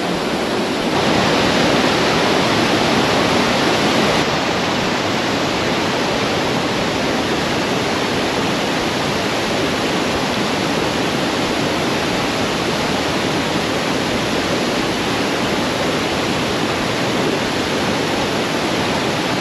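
Waterfall cascading over rock close at hand: a loud, steady rush of white water.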